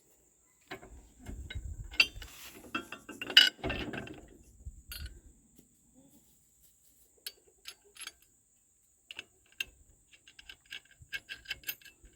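Metal clanks and clicks of nuts, bolts and pins being handled and fitted on a tractor hitch. Heavier knocks and handling come in the first few seconds, then a run of light, irregular metal clicks.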